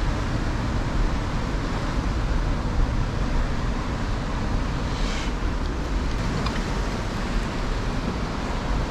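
Steady roar of wind buffeting the microphone, mixed with ocean surf churning against the foot of a sea cliff.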